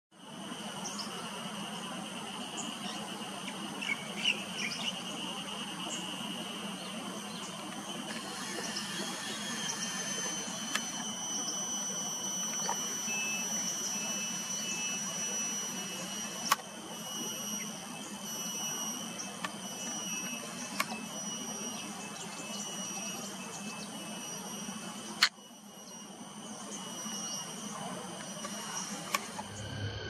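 Grassland insects droning steadily in several high-pitched tones, joined about a third of the way in by a pulsing insect trill, over a low steady hum. A few sharp clicks stand out, and there are brief chirps about four seconds in.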